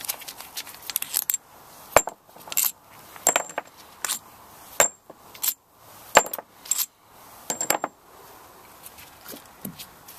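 Loose steel compressor bolts clinking against each other as they are set down on a pile: about eight sharp metallic clinks with a short ringing, spread over the middle of the stretch.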